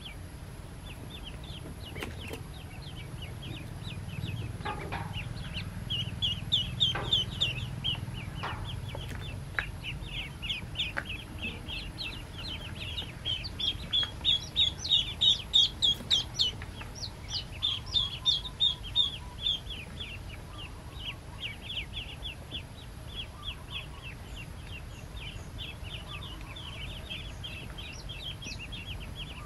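A brood of ducklings peeping constantly: a dense chorus of short, high calls that swells louder about a quarter of the way in and again around the middle.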